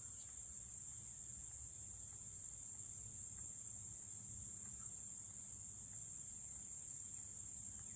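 Steady high-pitched chorus of insects trilling, an unbroken even hiss.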